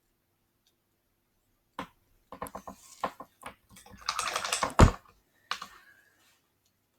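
Painting tools being handled: a run of small clicks and taps, a brief rattle, and one loud knock near the middle, as a paintbrush is set down and a clean one picked up.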